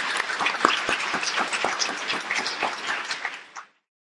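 Audience applauding, a dense patter of many hands clapping that fades and cuts off suddenly near the end.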